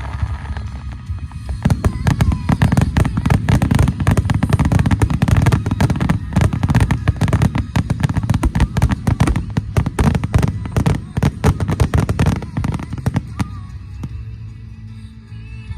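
Rapid barrage of fireworks, bursts and crackles in quick succession with deep booms underneath, dense from about a second and a half in and dying away a couple of seconds before the end, with music playing underneath that is left on its own as the bursts fade.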